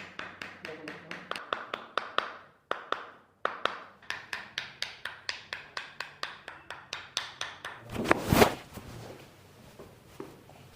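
Rapid, evenly spaced tapping, about five sharp taps a second, with a brief pause about three seconds in, during a chiropractic treatment of a frozen shoulder. Near the end there is one louder burst of rustling noise, after which it goes quiet.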